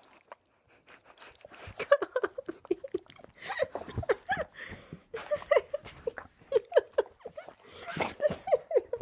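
A small dog making many short squeaky whines and grunts close up, with bedsheets rustling and scuffing around it.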